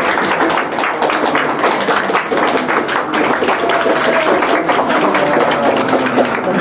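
A group of people clapping their hands quickly and continuously, with voices calling out over the claps.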